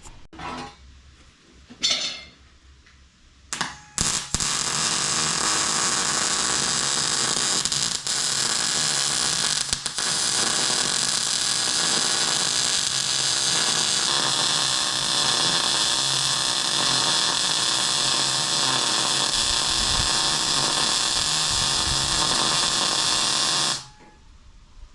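A handheld electric power tool, an angle grinder on steel tubing, starts in two short bursts, then runs steadily for about twenty seconds with two brief dips before it stops.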